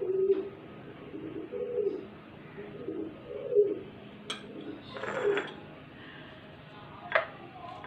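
A pigeon cooing in a run of low, repeated calls, with two sharp clinks of a spoon against glass, about four and seven seconds in.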